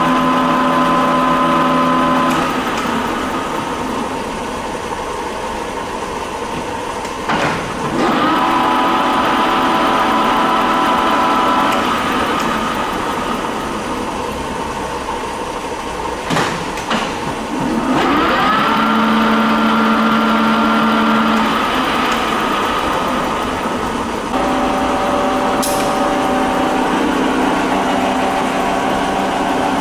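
1948 Warner & Swasey #5 ram-type turret lathe running, its spindle and headstock gears giving a steady whine that changes pitch several times as the spindle speed is shifted. A few clunks of the gear shift, and once a rising whine as the spindle spins back up.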